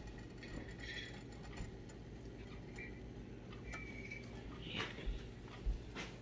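A few faint, light clicks and taps over a low steady hum, as olive oil is poured from a glass bottle into a ceramic frying pan; the pour itself is barely heard.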